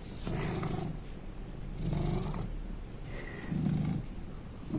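Domestic cat purring, the purr swelling and fading about every one and a half to two seconds with its breathing.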